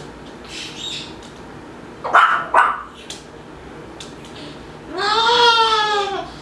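Moluccan cockatoo calling: two short, sharp calls about two seconds in, then one long call about five seconds in that rises and falls in pitch.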